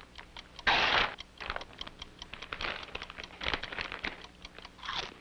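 Crinkling of a potato chip bag as a hand reaches into it, loudest about a second in, followed by lighter crackles and crunches of the chips. Under it runs a steady fast ticking of about four to five ticks a second, the ticking of a time bomb.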